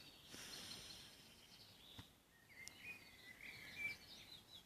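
Faint birds chirping over a quiet background, with a single sharp click about two seconds in.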